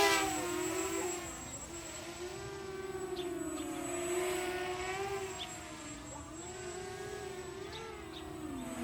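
Brushless quadcopter in flight, its motors and propellers buzzing with a pitch that wavers up and down.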